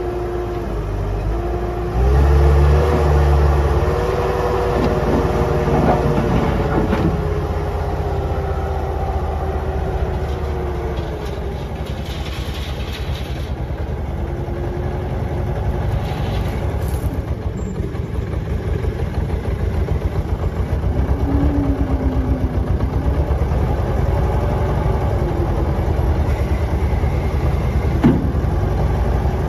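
A Bobcat 873G skid steer's 73 hp Deutz diesel engine running continuously, getting louder about two seconds in.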